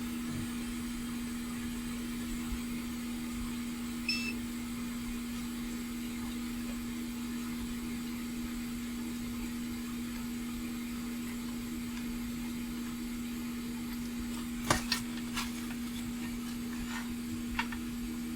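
Steady hum from electrical bench equipment, a constant low drone, with a brief beep about four seconds in and a few light clicks near the end from tools working on the circuit board.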